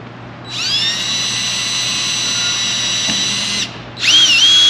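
Cordless drill driving a 1/8-inch bit down into the fins of an LED light bar housing: one run of about three seconds, its whine rising as it spins up, then after a short pause a second, shorter run whose pitch dips briefly under load before levelling off.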